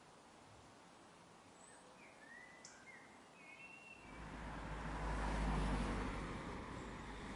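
A few short, faint bird chirps over a quiet outdoor background, then from about four seconds in a rising rush of noise with a deep low rumble that swells to the loudest point and stays up.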